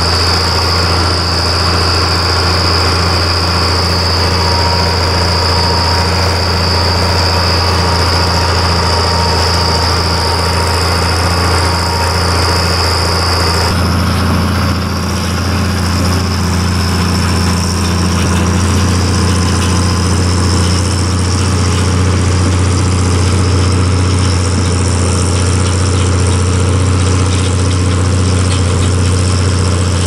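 International Harvester 956 XL tractor's six-cylinder diesel engine running steadily under load while ploughing. The sound changes abruptly about halfway through.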